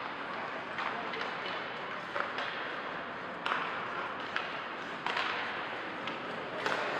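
Ice hockey play in a rink: scattered sharp clacks of sticks and puck, about seven in all, over a steady haze of rink noise.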